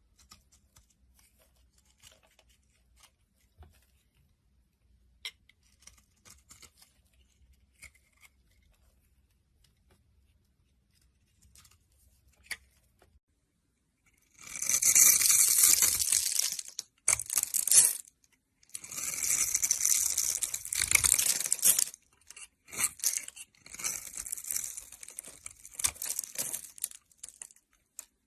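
A blade cutting and scraping through a bar of soap: faint small clicks and scratches for about the first half, then loud, crisp scraping strokes of one to three seconds each, with shorter strokes near the end.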